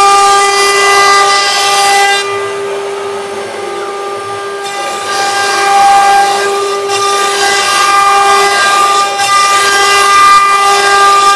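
Two spindles of a twin-head CNC wood router cutting a wooden board: a loud, steady whine with many overtones over a hiss of cutting. The cutting noise drops away for a couple of seconds about two seconds in, then comes back.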